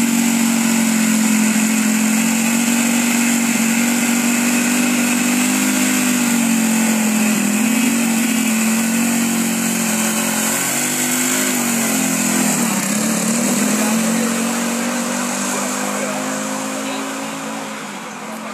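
Engine of a student-built formula race car running at a steady, high pitch, its speed wavering slightly as the car turns circles. The sound fades toward the end as the car drives away.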